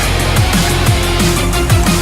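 Loud electronic background music with a driving beat and short falling bass slides, about two a second.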